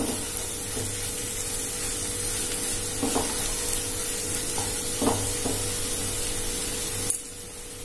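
Prawn and egg masala sizzling in a nonstick kadai while a wooden spatula stirs it, with a few short scrapes of the spatula against the pan about three and five seconds in. A faint steady hum runs underneath, and the sizzle drops away suddenly near the end.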